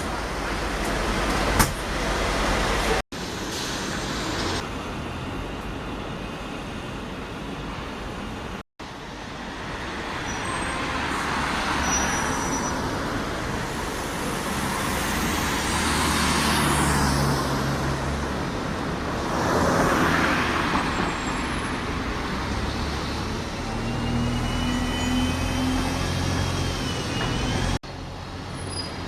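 Road traffic and buses passing, with engine hum and the rush of vehicles going by, in several short clips cut together. Two vehicles swell past in the second half, and a thin rising whine follows from one of them pulling away.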